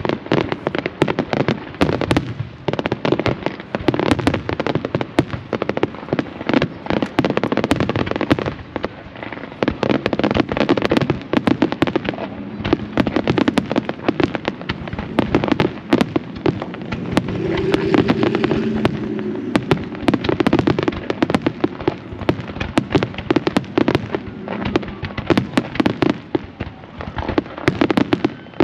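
Fireworks display: a rapid, continuous barrage of bangs and crackling reports, several shells going off every second.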